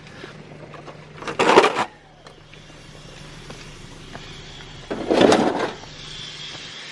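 Two brief scraping clatters, a few seconds apart, as salvaged metal stove pieces are set into a car trunk, over a faint steady low hum.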